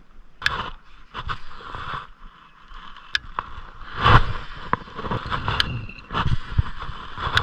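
Muffled knocks, rustles and scrapes, several sharp ones spaced irregularly, heard through a GoPro's waterproof housing that dulls the sound.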